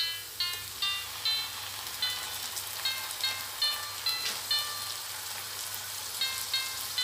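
Chopped onions sizzling steadily in hot oil in a frying pan, under background music of short, evenly spaced tinkling notes.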